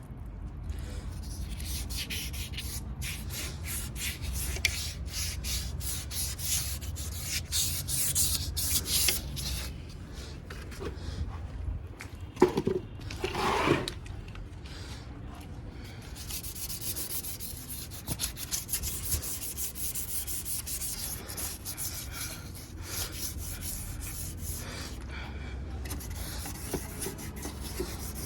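Hand sanding, rapid repeated rasping strokes of abrasive on a part being prepared during a motorcycle restoration. There is a short squeal about halfway through, over a steady low hum.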